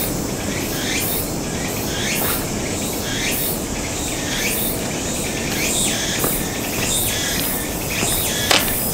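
Insects calling in a loud, steady chorus of repeated chirps, with a few footsteps on a stone path near the end.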